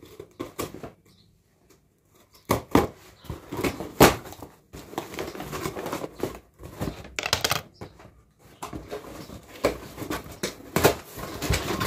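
Scissors cutting the packing tape on a cardboard shipping box, then the tape being pulled off and the cardboard flaps worked open, giving irregular scrapes, crinkles and knocks. It begins after a brief near-quiet pause about a second in.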